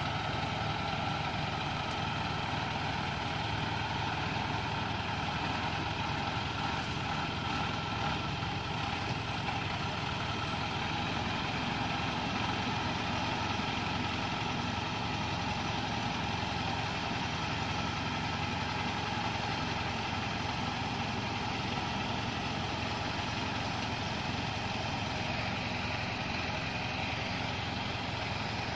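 Diesel engine of a loaded Dongfeng Trường Giang log truck running steadily at low speed as it works along a rough dirt track.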